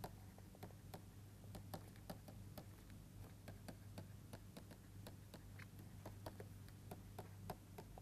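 Faint, irregular taps and scratches of a stylus on a tablet screen while handwriting, over a steady low hum.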